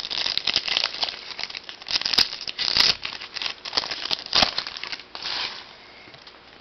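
Foil wrapper of a Topps Chrome football card pack crinkling as the pack is opened and handled, in quick irregular rustles and clicks that die down near the end.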